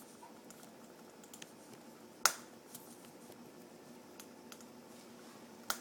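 Scattered small clicks and ticks over a faint steady hiss, with one sharp click about two seconds in and another near the end.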